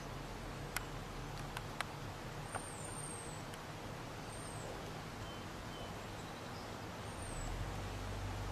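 Quiet lakeside outdoor ambience: a steady low rumble that swells a little about seven seconds in, a few sharp clicks in the first few seconds, and faint, brief high chirps of birds now and then.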